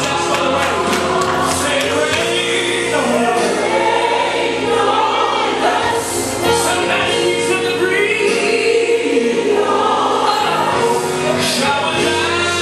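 Gospel choir singing a worship song over sustained chords.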